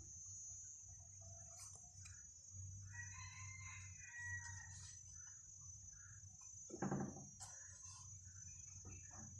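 A rooster crowing in the background, one drawn-out call about two and a half seconds in that lasts around two seconds. A short, louder sound comes near seven seconds in, over a steady high insect drone.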